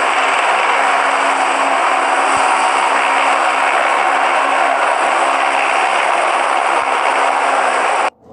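Helicopter hovering low and close, a steady loud rush of turbine and rotor noise with a low hum beneath it. The sound cuts off abruptly near the end.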